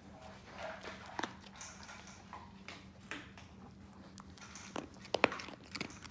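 Basenji sniffing and rooting through a fleece snuffle mat, with irregular sharp crunches as it finds and chews pieces of dry kibble; the loudest crunches come about five seconds in.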